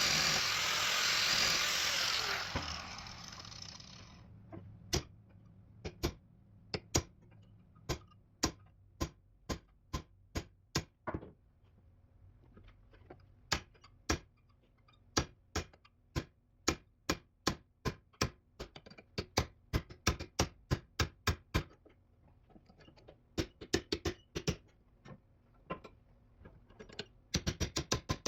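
A cutting tool running on the steel door hinge stops about two seconds in and winds down. Then a hammer strikes the hinge in a long, uneven series of sharp metal blows, quickening into a fast flurry near the end.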